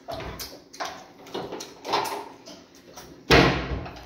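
Close-up mouth sounds of eating fufu by hand: chewing and lip smacking in short bursts, then one loud thud about three seconds in.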